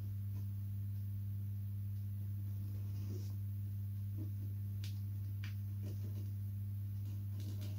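Steady low electrical hum, with a few faint scratches and light taps from small hand work on the glider's fabric covering.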